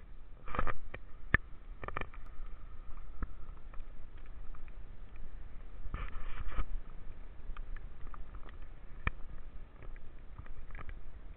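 Handling noise from a hand-held camera: scattered sharp clicks and short rustling bursts as it is moved and lowered toward the ice.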